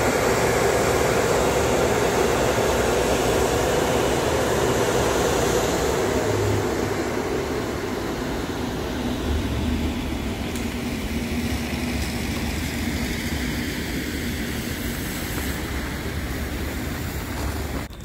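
Automatic car wash dryer blowers running with a steady loud rush of air. The sound eases off a little after about six seconds and then holds steady.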